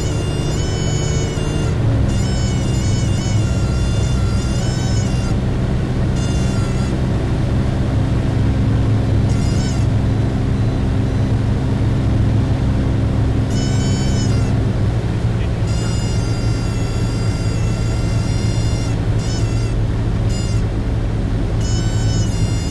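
Background music with melodic lines that come and go, over the steady drone of the Skyarrow Sport 600 light aircraft's engine and propeller inside the cockpit.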